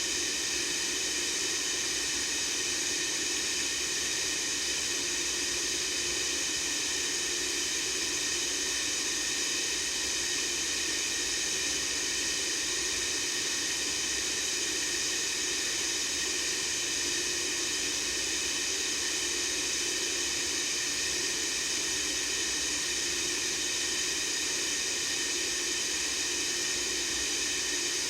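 Steady white-noise hiss, even and unchanging, strongest in the high treble, with a faint low hum underneath.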